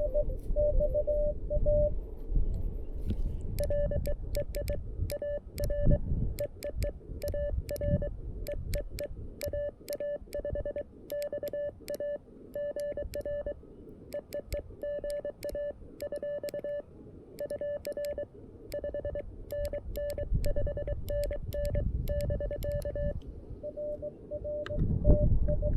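Morse code being sent on a CFT-1 QRP transceiver: its sidetone beeps in dots and dashes, and the 3D-printed paddle key clicks sharply on the elements.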